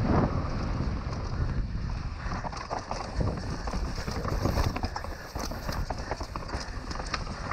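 Mountain bike rattling and clicking as it rides fast over a rough dirt trail, with a steady rumble of wind on the helmet camera's microphone.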